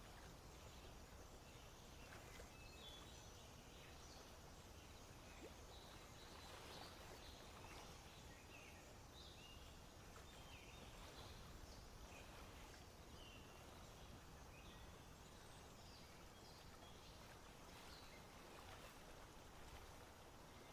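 Faint outdoor ambience in a swamp: scattered short bird chirps over a low, steady background rumble.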